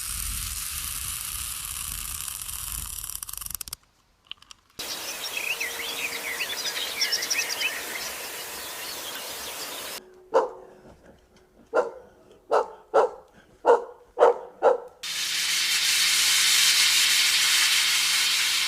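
A dog barking about seven times in quick succession, between stretches of steady rushing hiss and a patch of high chirping.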